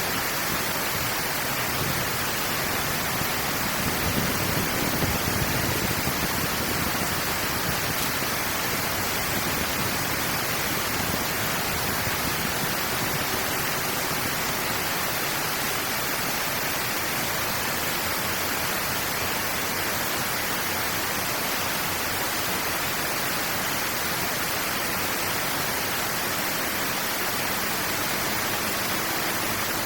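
Steady rush of flowing water draining through a dam outlet, an even noise that stays the same throughout.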